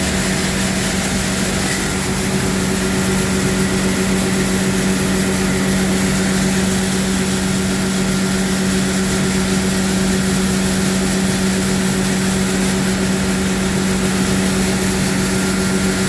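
A sutton coffee-processing machine running steadily, a constant hum with an even hiss over it.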